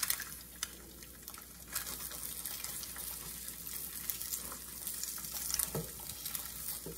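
Eggs sizzling in a hot frying pan, with a few sharp clicks and scrapes as a spatula cuts through the egg whites against the pan.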